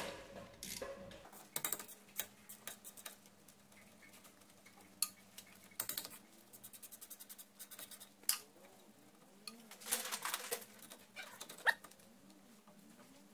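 Metal clicks and knocks of a wrench working the guide bolts of an Opel Antara's front brake caliper, with a quick run of even clicks about six seconds in and a sharp knock near the end.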